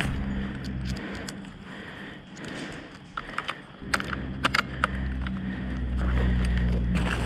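Sharp plastic and metal clicks of an M4-style airsoft rifle being handled, in a run about three to five seconds in, over a low steady drone.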